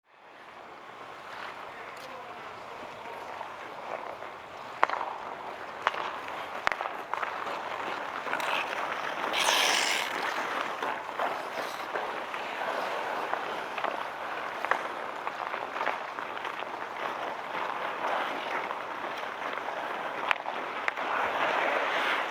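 Outdoor ice hockey play: skates gliding and scraping on the ice, with scattered sharp clacks of sticks and puck. It fades in at the start, and one loud hissing skate scrape comes about nine seconds in.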